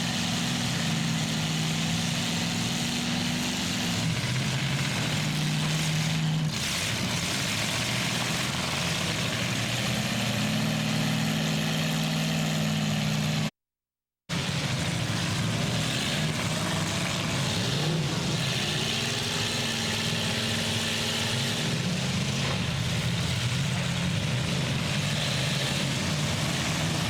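Engines of demolition-derby trucks and SUVs running and revving, their pitch rising and falling as the drivers throttle up and back off. The audio cuts out completely for a moment about halfway through.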